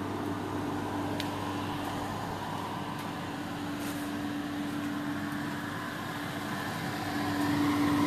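Homemade air conditioner built from refrigeration parts running: a steady electric hum from its compressor and fan over a rush of moving air, growing a little louder near the end.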